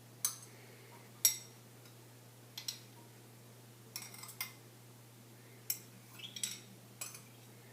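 Kitchen utensils clinking against cookware: about a dozen sharp, ringing clinks at irregular intervals, the loudest two in the first second and a half, over a faint steady hum.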